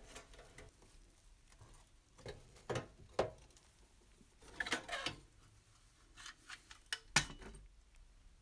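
Scattered light metal clicks and clinks, irregular and not a steady rhythm, as small tinplate toy parts are handled, with a sharper knock about seven seconds in.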